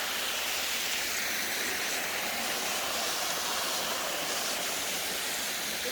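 Steady, unbroken rush of water falling from a waterfall.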